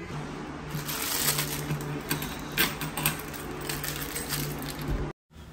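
Clear plastic wrapping crinkling as it is squeezed and crushed in a hand, a dense run of small crackles over a steady low hum; it cuts off abruptly near the end.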